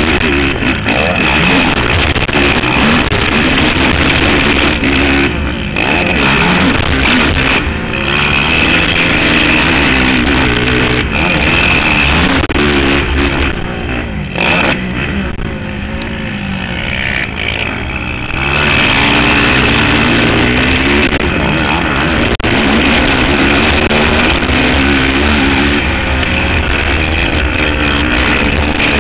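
Race ATV engine revving hard up and down through the turns and straights of a dirt motocross track, heard from the rider's seat. The engine note drops away for a few seconds about halfway through, then picks up loud again.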